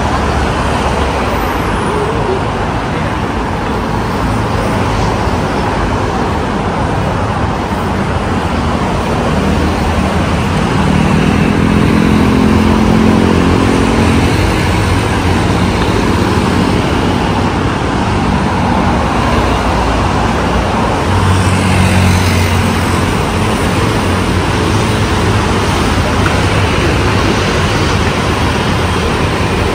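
Steady noise of multi-lane road traffic, cars and motorbikes passing below. A louder engine swells past about ten to fifteen seconds in, and another about twenty-two seconds in.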